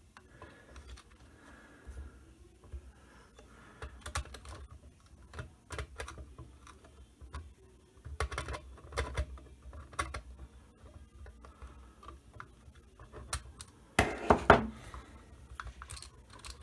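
Small clicks and light scraping from hand-fitting a tiny nut onto the threaded spindle of a quartz clock movement, with fingers and pliers, with a louder cluster of clicks about fourteen seconds in. The nut does not thread on because the fit is too tight.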